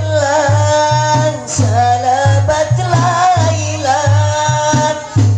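Hadrah ensemble: a solo voice sings a wavering devotional melody over frame drums and a bass drum beating a steady rhythm.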